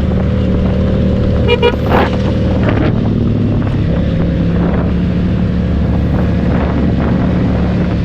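Motorcycle engine running steadily while riding, its note shifting slightly lower about four seconds in. A brief vehicle horn toots about a second and a half in.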